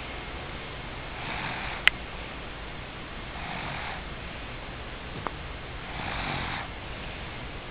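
Snoring in deep sleep: three noisy breaths, about one every two and a half seconds, over a low steady hum. A sharp click about two seconds in is the loudest sound, with a fainter click about five seconds in.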